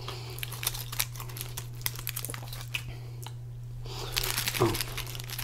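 Aluminium foil around a wrap crinkling and crackling as it is handled, busier about four seconds in, over a steady low hum.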